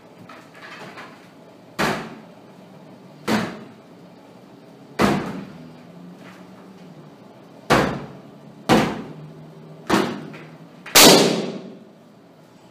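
Six sharp thumps at uneven intervals, then a much louder bang about eleven seconds in as a large latex party balloon bursts.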